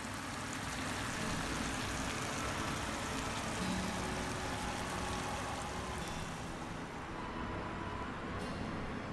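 Beef and green beans in oyster sauce sizzling in a pan: a steady hiss.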